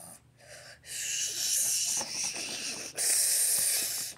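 Loud, breathy hissing made by a person's mouth, in three bursts: a short one, one of about two seconds, and one of about a second.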